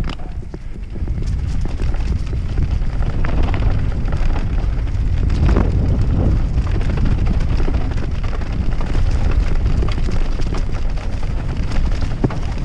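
Wind buffeting the camera microphone on a fast enduro mountain bike descent, mixed with a rumble of tyres over rough ground and the clatter and rattle of the bike over bumps.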